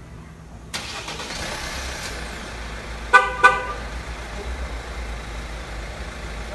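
Kia Sportage R's engine starting by remote start: a sudden rise about a second in, then running steadily. Two short horn chirps from the remote-start alarm sound just after three seconds, a quarter-second apart, and are the loudest sounds.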